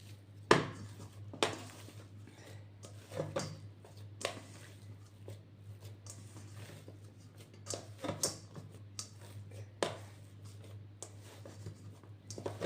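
Scattered knocks and clinks of kitchenware as bread dough is handled and shown, the sharpest about half a second in, over a steady low hum.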